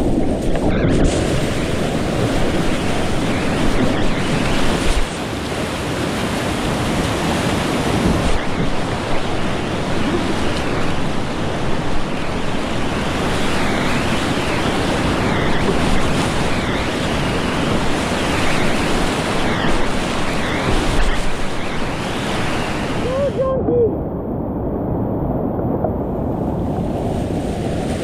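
Whitewater of a steep mountain creek rushing loudly and steadily. The sound turns muffled for a couple of seconds about three-quarters of the way through.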